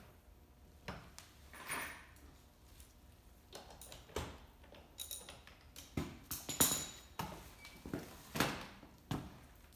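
Scattered knocks, clicks and short scrapes of parts being handled on a mini electric ATV lying on its side, then a sharp knock as the ATV is tipped back down onto its wheels near the end.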